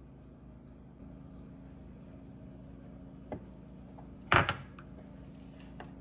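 A metal sheet pan knocks once against a stone countertop about four seconds in as it is picked up, after a faint click a second earlier, over a low steady hum.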